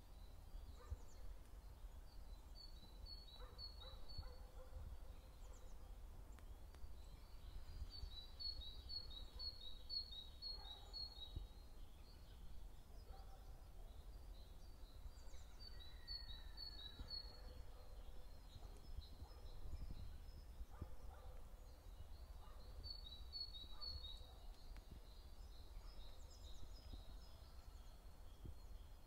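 A small songbird singing, four short phrases of rapidly repeated high notes a few seconds apart, over a faint low rumble.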